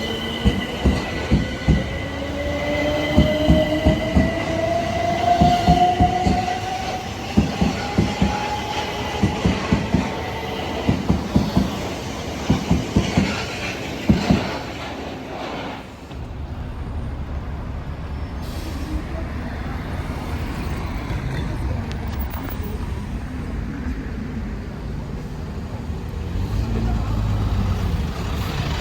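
Electric train pulling away: its traction motors whine, rising steadily in pitch as it gathers speed, over a steady high tone and a run of loud knocks from the wheels crossing rail joints. At about halfway the train sounds stop, and a steady low rumble takes over.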